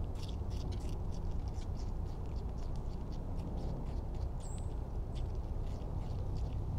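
Rabbit chewing apple: an irregular run of small crisp crunches, several a second, over a steady low background rumble.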